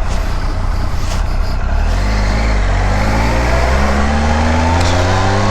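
Triumph motorcycle engine pulling under acceleration, its pitch rising steadily from about two seconds in, with wind rumble on the microphone before that.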